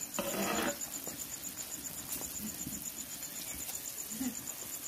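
Sugar syrup boiling vigorously around rosogolla (chhena) balls in a wide pan, a steady bubbling; a ladle stirs in with a brief louder splash just after the start. A cricket chirps steadily in the background, about ten pulses a second.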